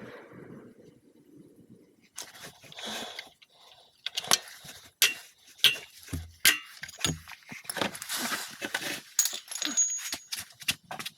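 Irregular run of sharp metal clinks, taps and short scrapes, starting about two seconds in, from tools and metal parts being handled.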